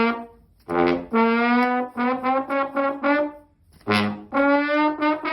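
Trombone-like brass sound effect played from a device, repeating: a short blast, a held note, then a run of quick staccato notes, starting over about four seconds in.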